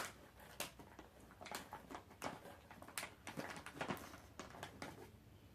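Faint, irregular mouth clicks and smacks of someone chewing chocolate-covered dried fruit.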